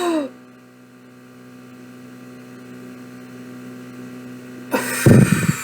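Steady electrical mains hum while a deep breath is held. About five seconds in comes a loud, rushing exhale as the held breath is let out close to the microphone.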